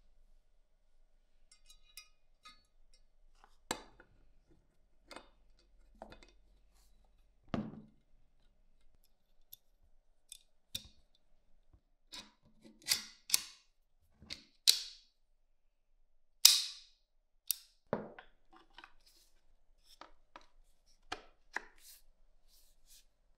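Steel parts of a Carcano rifle being handled and fitted together during reassembly: a series of sharp metallic clicks and knocks, with a couple of duller thuds of metal set down on a wooden bench. The clicks come every few seconds at first and turn louder and closer together after the middle.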